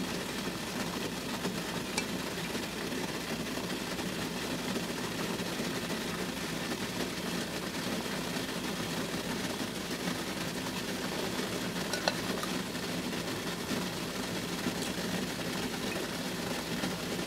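Steady hiss of water boiling in a stainless steel steamer pot beneath the steaming tray, with two faint clicks, about 2 and 12 seconds in, as batter is spooned into the cups.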